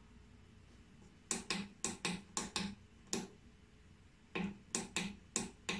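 Timer buttons on the control panel of a VELP JLT6 flocculator being pressed over and over, each press giving a short tick: a run of about seven, a short pause, then about five more.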